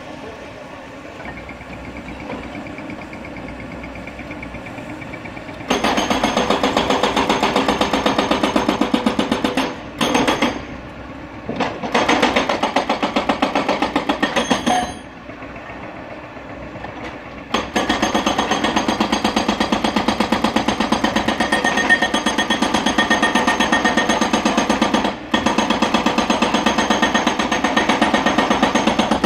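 Hyundai excavator's hydraulic rock breaker hammering into solid rock in a rapid, steady rattle of blows. It starts about six seconds in and comes in long runs, stopping briefly a few times as the operator lifts and repositions the chisel.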